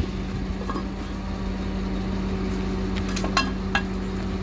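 A slurry tanker rig's engine running with a steady drone, with a few sharp metallic clinks about three seconds in as fittings are handled.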